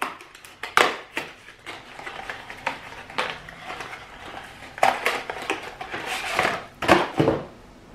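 A small cardboard product box being opened and handled by hand, and a hairbrush drawn out of it: scattered taps, scrapes and rustles, with a few sharper knocks near the end.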